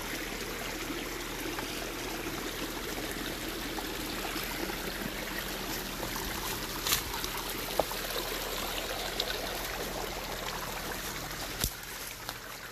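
Small forest stream trickling and flowing steadily, with a few sharp clicks in the second half.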